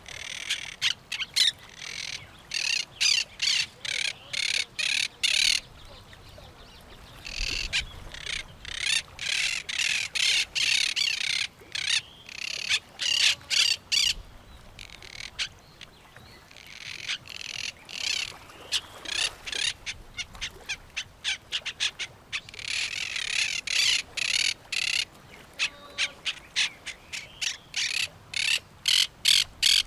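Parrots calling in quick series of short, harsh calls, several a second, in bouts of a few seconds with brief lulls between.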